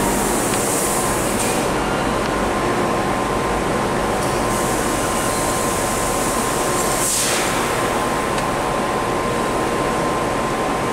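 Steady machinery noise of a running Bodor T6A laser tube cutting machine: an even hum and hiss with a thin steady high tone, and a brief swell of hiss about seven seconds in.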